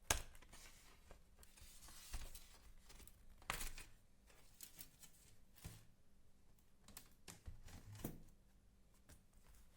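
Scattered clicks, taps and scraping of hands handling a laptop and its parts, with a sharp click at the start and another about three and a half seconds in.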